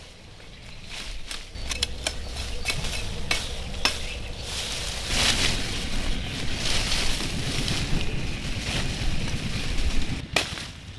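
Dry leaves, twigs and leafy branches rustling and crackling as brush is cut with a machete and gathered up, with a run of sharp snaps and knocks in the first few seconds and another near the end.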